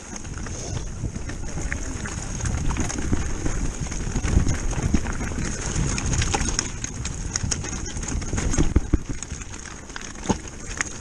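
Electric mountain bike rolling fast down a loose rocky track: tyres crunching and rattling over stones, with a low rumble and many irregular sharp knocks and clatters from the bike.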